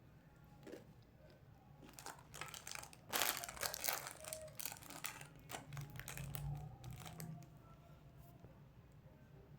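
A plastic snack wrapper being crinkled and handled in a run of crackling rustles, loudest about three seconds in, which die away near the end.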